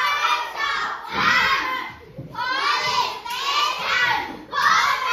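A class of young children shouting out together in chorus: about four loud group phrases, each about a second long, with short breaks between.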